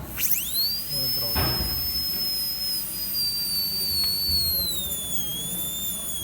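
High-pitched whine of a high-speed air-turbine dental handpiece. It spins up sharply right at the start, holds a high whine, then sinks slowly in pitch.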